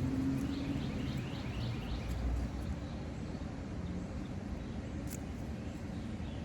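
Outdoor ambience: a bird gives a quick run of short chirps in the first couple of seconds over a steady low rumble, and there is a single sharp click about five seconds in.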